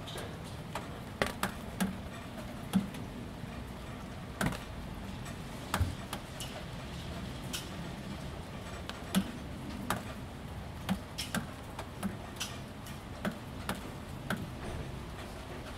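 Irregular, sharp drips of rainwater ticking onto ribbed roof panels, about one or two a second and varying in strength, over the steady soft background of a light drizzle.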